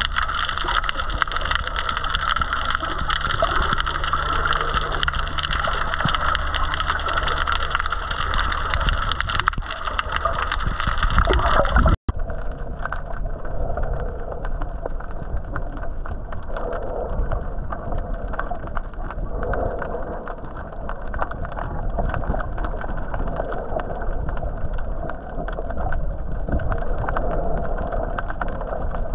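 Muffled underwater sound from a submerged camera: a steady rush of water with gurgling, and a low steady hum through the first part. About twelve seconds in, a sudden cut leaves the sound duller and more muffled.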